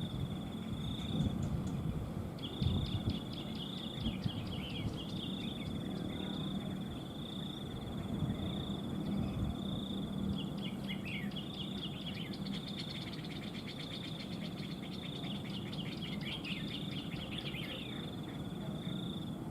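Red-whiskered bulbuls calling: bursts of quick chattering notes and short falling whistles, busiest around the middle. Over them a high note repeats evenly about once a second.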